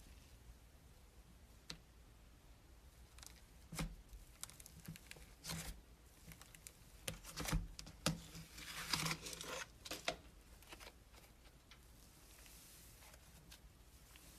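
Close-up handling noises: irregular crinkling and crackling with scattered clicks, busiest through the middle of the stretch and fading to a faint hush near the end.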